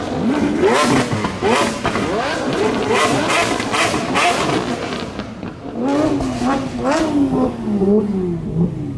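Several supercar engines revving at once, with many overlapping quick throttle blips. From about six seconds in, one engine's revs rise and fall over and over.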